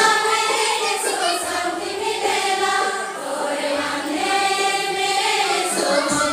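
A group of women's voices singing a song together in unison, in phrases that rise and fall.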